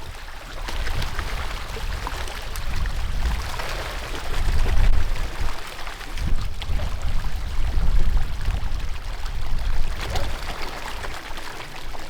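Water splashing and churning as a large crowd of fish thrash at the surface for food, over an uneven low rumble.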